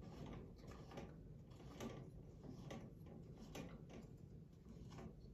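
Faint, irregular small metal clicks and scrapes as the screw on a pipe-and-drape crossbar attachment bracket is tightened onto the top of a metal upright.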